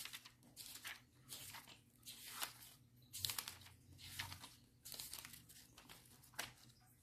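Thin Bible-paper pages of a hardcover Bible being flipped through by hand: a faint, irregular run of rustling swishes and crinkles as the pages turn.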